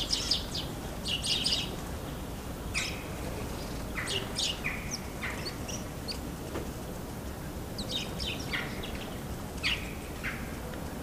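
Small songbirds chirping: short, high calls in scattered clusters every second or two, over a steady low background rumble.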